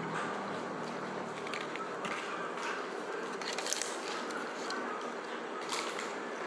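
Eating at a table: a plastic fork scraping and clicking in an aluminium foil takeaway tray, with two short sharp clicks standing out, over a steady background hiss.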